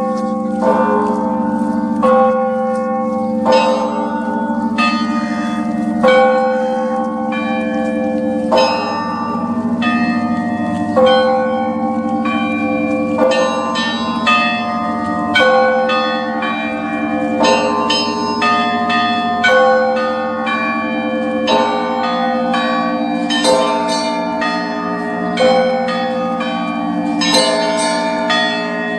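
Church bells ringing in the Russian zvon style: smaller bells struck in a quick, repeating rhythmic pattern over the steady hum of a large bell, with accented strokes every second or two.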